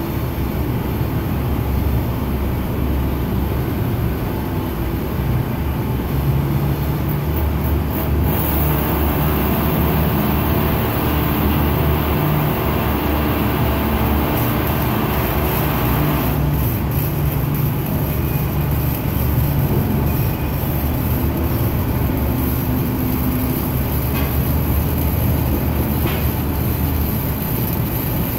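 Low, steady machinery rumble. A brighter hiss joins in from about eight seconds in and stops suddenly about halfway through.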